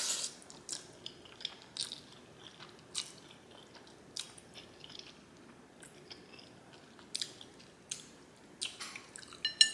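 Close-miked mouth sounds of a person eating noodles: irregular wet smacks and clicks of chewing, a few each second. Near the end comes a light ringing clink of a utensil against a bowl.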